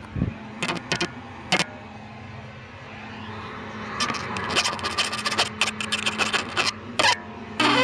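Scattered sharp clicks and knocks of handling, a few at first and many from about four seconds in, over a faint steady hum.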